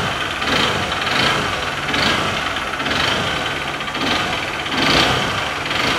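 Honda Bros 150 single-cylinder engine running with a very ugly knocking noise, swelling roughly once a second, which the mechanic takes to be a worn connecting rod (biela).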